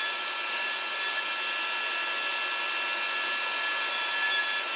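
Router running steadily with a high whine, rounding over the edges of small wooden knobs.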